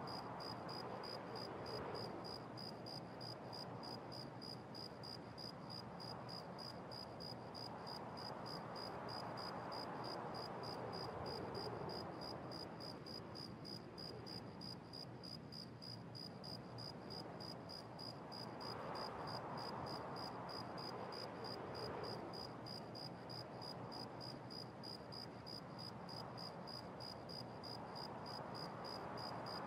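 Faint bedroom room tone: a steady hiss that slowly swells and fades, with a high-pitched tone pulsing evenly about three times a second.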